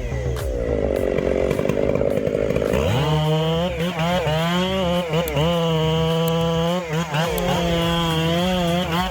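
Chainsaw engine running under load. Its pitch stays low for the first few seconds, then rises sharply about three seconds in and holds high, sagging briefly several times as the chain bites into the wood.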